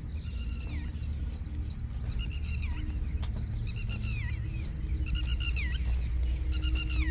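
An animal's high-pitched calls, five of them about a second and a half apart, each a quick run of notes ending in a falling slide, over a steady low rumble.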